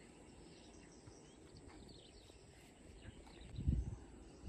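Faint outdoor ambience: a few short bird chirps over a low rumble of wind on the microphone, with a louder low buffet of wind about three and a half seconds in.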